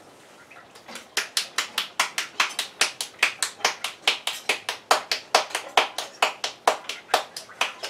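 Hands patting a ball of corn masa into a tortilla: quick, even slaps of palm on dough at about five a second, starting about a second in.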